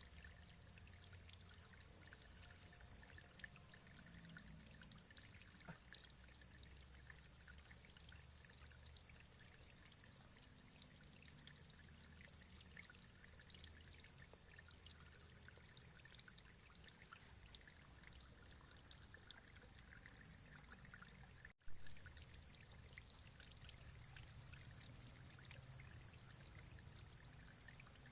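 Faint, steady running water, a stream-like trickle with fine ticks and splashes, over a low rumble. About three-quarters of the way through it drops out for an instant with a click, like a splice in the recording.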